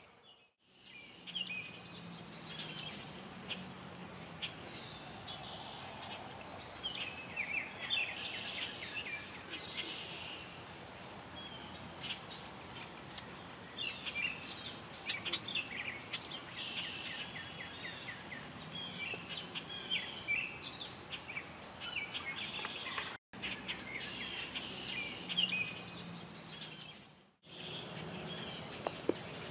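Several songbirds chirping and trilling over a steady outdoor hiss, the sound dropping out briefly near the start and twice near the end.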